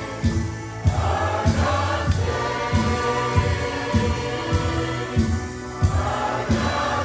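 Group singing of a contemporary worship song with a live band, a drum kit keeping a steady beat.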